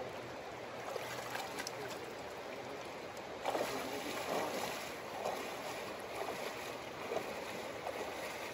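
River water flowing steadily, briefly a little louder about three and a half seconds in.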